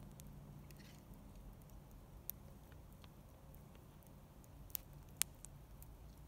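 Quiet background with three sharp clicks of a fork against dishes, the loudest about five seconds in.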